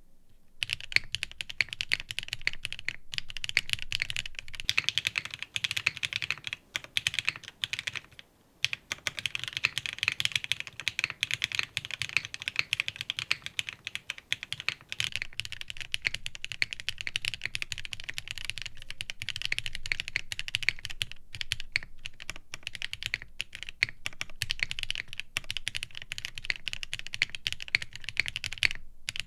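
Fast, continuous typing on a custom mechanical keyboard (Matrix IM+ Meta) with lubed and filmed Gateron CJ linear switches on a carbon fiber plate, direct top mount with no foam. The keystrokes start about a second in and pause briefly around eight seconds in.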